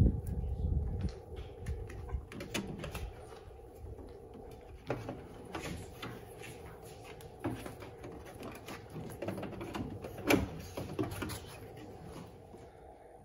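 Irregular light clicks and knocks of wire and a hand tool being handled at a metal breaker panel, the sharpest knock about ten seconds in.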